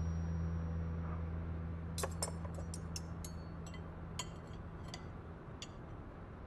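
Metal knife and fork clinking and scraping on a ceramic plate, a dozen or so sharp clinks over a few seconds while cutting food. A low held music note fades out at the start.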